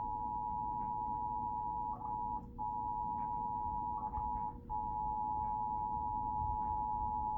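Emergency Alert System attention signal: the steady two-tone alarm (853 and 960 Hz sounded together), cutting out briefly twice, about two and four and a half seconds in, over a fainter steady hum.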